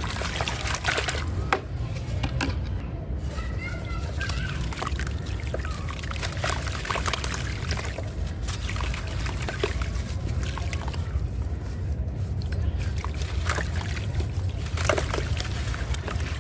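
Dry pottery clay crumbling and crunching, a stream of irregular sharp crackles and snaps over a steady low hum.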